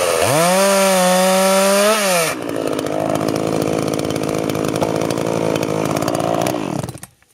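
Two-stroke chainsaw at full throttle cutting through a birch log, its pitch dipping as the chain bogs in the wood and climbing back. About two seconds in the throttle is released and it drops to idle, then the engine winds down and stops near the end.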